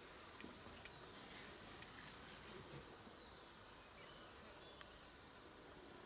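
Faint, steady insect chirring: a high, finely pulsing trill over quiet background hiss, with a few soft ticks here and there.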